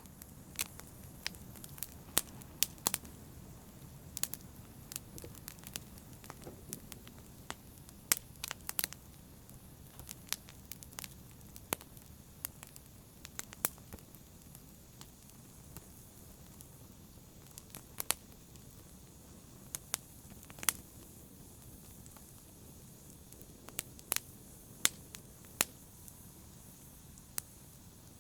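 Wood fire in a fireplace crackling: irregular sharp pops and snaps, some louder than others, over a steady low rush of the flames.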